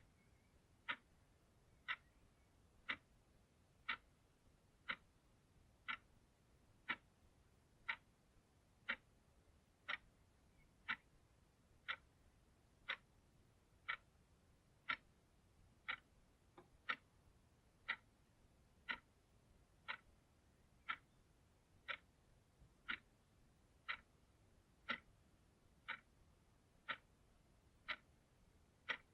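Clock ticking steadily, one short, sharp tick each second.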